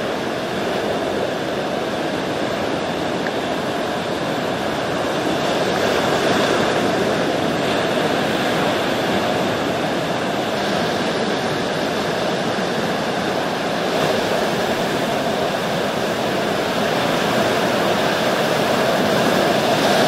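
Ocean surf: a continuous wash of breaking waves that swells slightly a few times.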